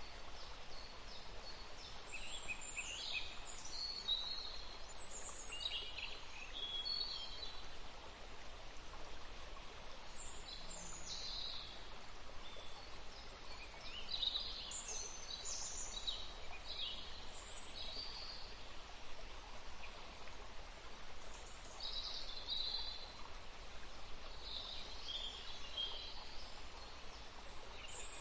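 Forest ambience: birds calling and singing in short, scattered phrases over the steady rush of running water.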